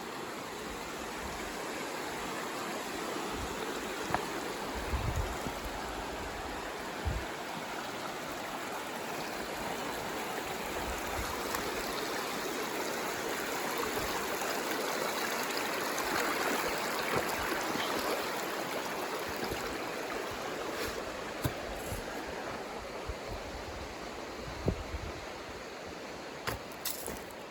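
Creek water rushing steadily, growing louder toward the middle and easing off again near the end, with a few soft thumps.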